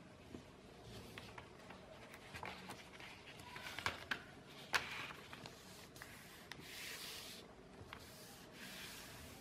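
A sheet of A4 paper being folded by hand: palms rubbing and creasing the folds, with paper rustling, a few sharp crackles about four to five seconds in, and two longer rubbing strokes near the end.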